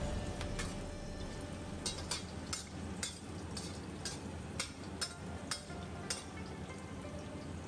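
Ginger slices sizzling in oil in a stainless steel wok while a metal spatula stirs them, clinking and scraping against the pan about twice a second through the middle of the stretch.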